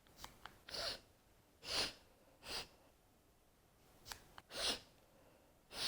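Small clicks of a nasal spray pump followed by short sharp sniffs through the nose, in two rounds: a pair of clicks then sniffs near the start, and again a pair of clicks then sniffs about four seconds in, as an anti-snoring spray is taken into each nostril.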